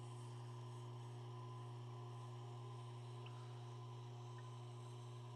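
Steady low electrical hum with a row of faint higher overtones, unchanging throughout.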